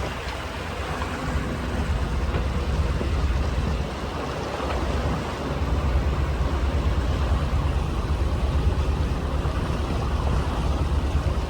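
Motorboat engine running steadily under way, a continuous low hum, with water and wind noise over it.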